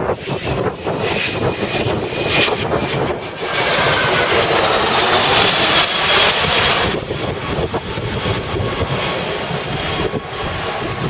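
A jet airliner's engines running as it lands, with a louder rushing hiss swelling for a few seconds in the middle. Gusty typhoon wind buffets the microphone.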